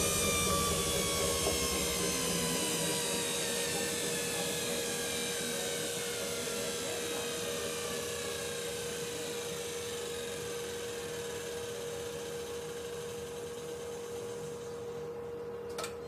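Logik L612WM13 front-loading washing machine winding down after a spin: the motor and drum whine falls steadily in pitch and fades as the drum coasts toward a stop, over a steady hum, with a single click near the end.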